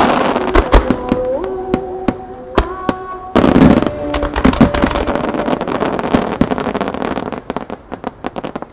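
Large 10-go aerial firework shells bursting, with a boom right at the start and another about three and a half seconds in. Each is followed by a dense crackle of many small sharp pops from the crackling stars, which thins out near the end. Music plays underneath during the first few seconds.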